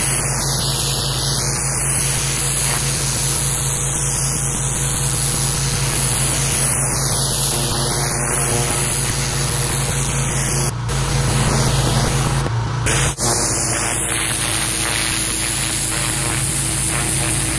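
Pressure washer wand blasting water onto a concrete sidewalk and driveway: a steady hiss of high-pressure spray over the low hum of the machine's engine and pump, briefly broken twice about two-thirds of the way through.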